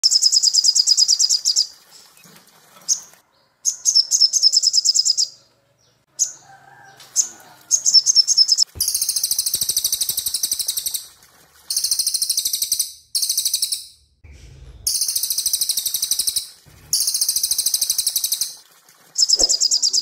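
Songbirds, a cililin and a sogok ontong (olive-backed sunbird), singing in high, very rapid trilled phrases of one to two seconds each, repeated with short gaps.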